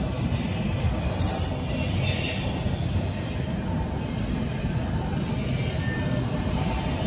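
Empty double-stack intermodal well cars of a CSX freight train rolling past: a steady rumble of steel wheels on rail, with brief higher-pitched noise about one and two seconds in.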